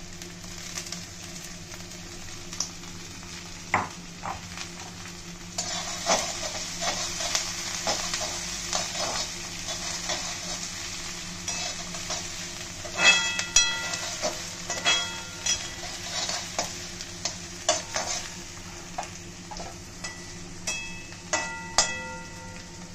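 Chopped vegetables sizzling in hot oil in a metal kadhai while a perforated metal spatula stirs them, scraping and clicking against the pan. The spatula strikes the pan rim with a few ringing clangs a little past halfway and again near the end.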